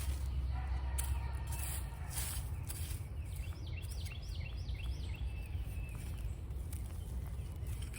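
A bird sings a quick run of about six repeated chirps a little over three seconds in, over a steady low rumble and a few short rustling scrapes.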